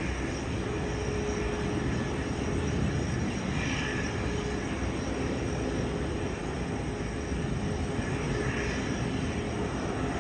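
Jet airliner engines running steadily, with a faint steady tone underneath.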